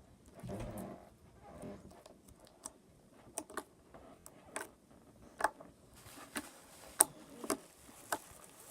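Crystal putty slime being handled, giving scattered short sharp clicks and small pops, roughly one every half second to second. A soft rustle comes about half a second in.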